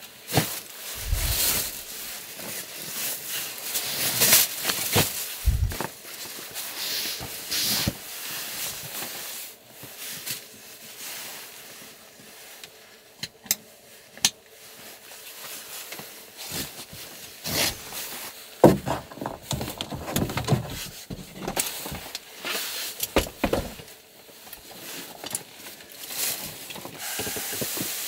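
Irregular rustling, rubbing and knocking as objects are handled, with a few sharp clicks in the middle and one louder knock a little past halfway.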